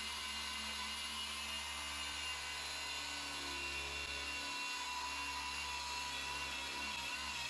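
Car-polishing machine running steadily on a painted panel, a continuous high whine with no change in speed.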